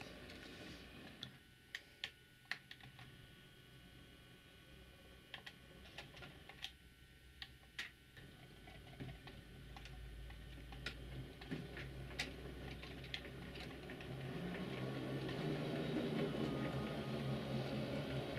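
H0 scale model train running on the layout track: irregular sharp clicks of the wheels over the rail joints. A low steady hum grows louder in the last few seconds.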